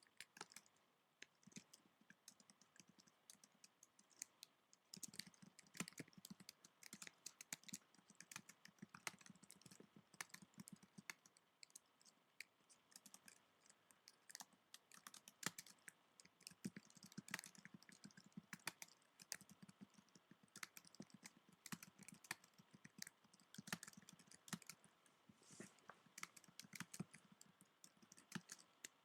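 Fingers typing on a computer keyboard: a quiet, irregular run of key clicks, with a short lull a second or so in.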